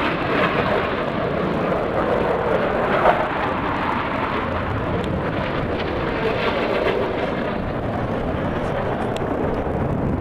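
Airplane engine noise from an aircraft flying at an airshow: a steady rushing sound whose higher part fades about seven seconds in.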